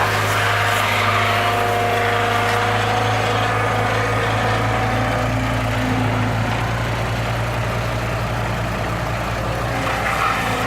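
Bobcat 743 skid steer's Kubota diesel engine running steadily, at an even speed.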